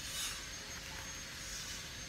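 Fabric and padding of a Fox Launch knee pad rustling as it is handled and turned over, two brief swishes over a steady background hiss.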